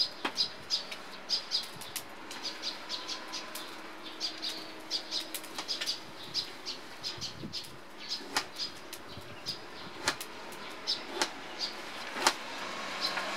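Kitchen knife slicing a boiled bamboo shoot on a plastic cutting board: a run of short, crisp cuts, with a few sharper knocks where the blade meets the board.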